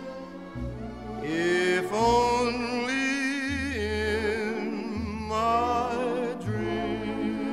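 Background music: a slow Christmas song in which a voice holds long notes with vibrato over orchestral backing.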